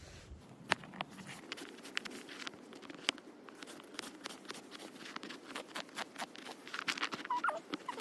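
A small Victorinox pocket knife cutting potatoes into cubes: irregular sharp clicks as the blade chops through and taps the cutting surface, a little busier near the end.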